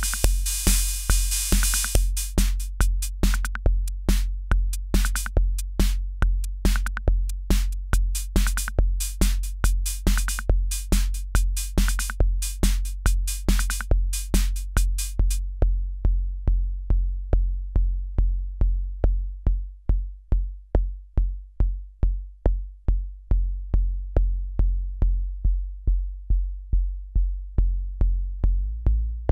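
Akai Rhythm Wolf analog drum machine playing a steady four-on-the-floor pattern, its kick drum about twice a second. Bright hi-hat and snare hits run over it for the first half and then drop out, leaving the bare kick. The kick's sound changes as it is tweaked.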